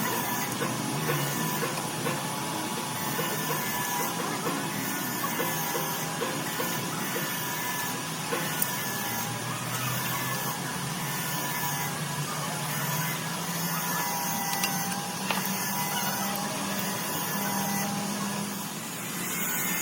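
Steady machine running, with a low hum and a faint pattern repeating about once a second.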